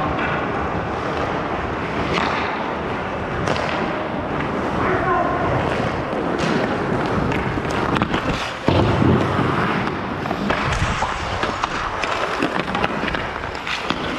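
Ice hockey play at close range: skate blades scraping and carving on the ice, with scattered sharp clacks and knocks of sticks and puck.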